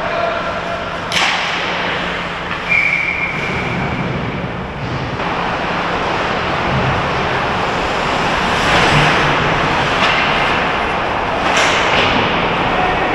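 Ice hockey play: skate blades scraping the ice and the rink's echoing noise, with a sharp crack of a puck or stick impact about a second in and another near the end. A short high tone sounds about three seconds in.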